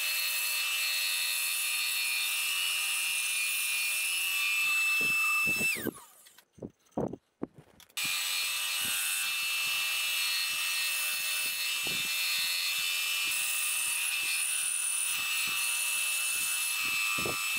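Bandsaw running and cutting through a glued-up laminated wooden block, a steady whine with a high tone. About six seconds in it winds down with a falling pitch, a couple of seconds of quiet with a few light knocks follow, then the saw is running again.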